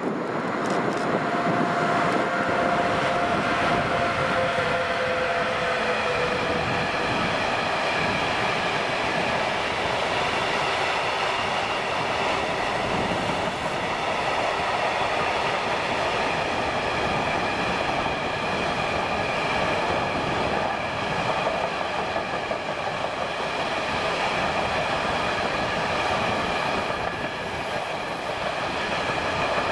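Long container freight train hauled by an electric locomotive passing close by. A whine falls in pitch over the first few seconds as the locomotive goes by, then the container flat wagons roll past in a steady, continuous rumble with a thin high squeal near the end.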